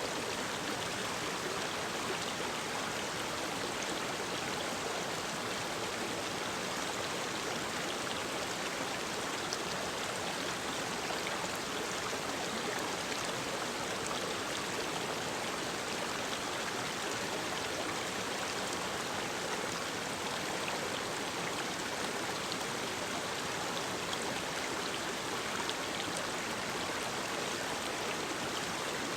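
Mountain stream running steadily over rocks: a constant, even rush of water.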